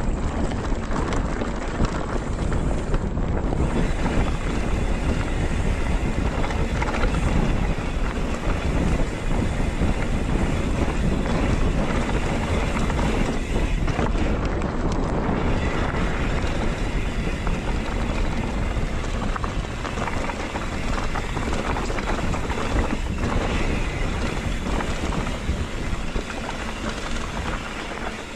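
Steady wind noise buffeting the microphone, with a heavy low rumble, as when a camera is carried along at speed.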